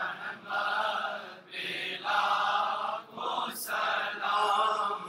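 A group of men chanting a devotional Urdu salaam together, in drawn-out sung phrases of about a second or more with short breaks for breath between them.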